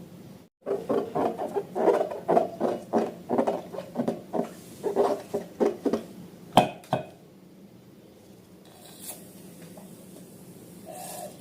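Slime being worked by hand, a run of rhythmic squishes about two to three a second, ending in a couple of sharp clicks, then quiet.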